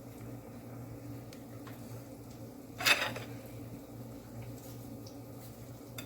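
Kitchenware clattering once, sharply, about halfway through, with a short ring after it, over a steady low hum and a few faint taps.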